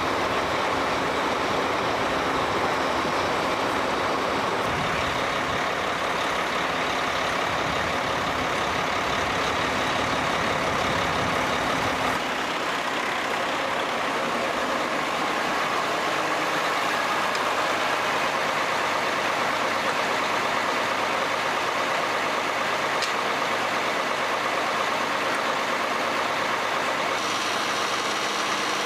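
Large airfield snow-removal vehicles running steadily under heavy engine load, with the blower and broom noise spread across the whole range. The deep rumble falls away about twelve seconds in, leaving a steady whir.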